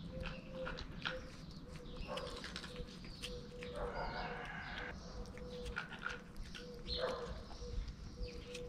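Two kittens eating wet cat food from a foam tray: wet chewing and smacking clicks throughout, with short animal vocal sounds about two, four and seven seconds in.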